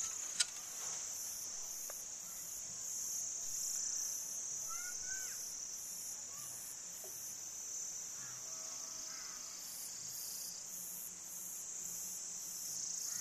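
Insects chirring outside: a steady high-pitched drone with a faster, even pulsing above it that goes on without a break.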